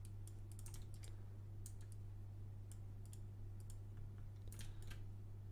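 Faint clicks of a computer mouse and keyboard, scattered and irregular, over a steady low hum.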